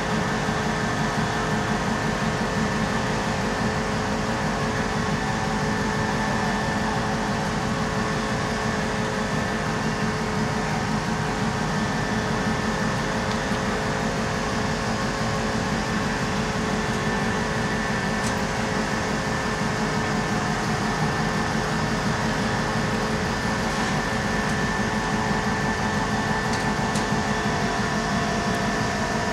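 Diesel-electric locomotive idling at a standstill: a steady, unchanging mechanical drone with a constant hum of several steady tones.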